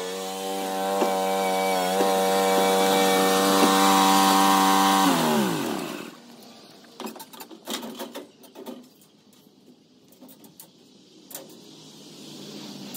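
John Deere Z375R zero-turn mower's V-twin engine running steadily, then shut off about five seconds in, its pitch sliding down to a stop. A few light knocks and clanks follow as the rider steps off the mower on the metal trailer.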